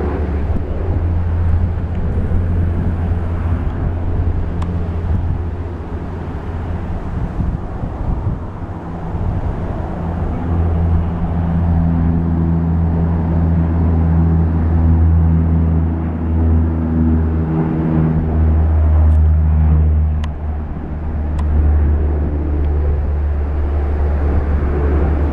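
Canadair CL-415 water bombers' twin Pratt & Whitney PW123AF turboprop engines droning as the planes fly low over the lake and skim it to scoop water. A steady low drone throughout, with propeller tones that swell and fade in the middle as a plane passes close.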